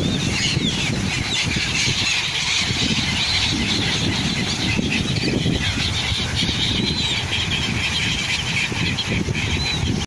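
A flock of gulls giving short, high calls again and again, over a steady rush of wind and small waves lapping the shore.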